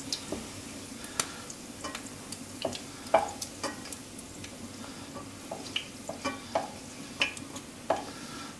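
Melted fat-tail lamb fat sizzling in a frying pan, with irregular clicks and scrapes of a wooden spoon fishing the cracklings out of the hot fat.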